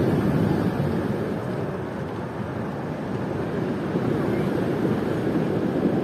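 A steady rushing noise of sea surf and wind, swelling and easing slowly.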